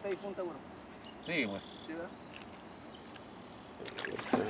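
Night crickets chirping steadily in a high, evenly pulsing trill. Short murmured voice fragments come at the start and about a second and a half in, and a couple of sharp knocks come near the end.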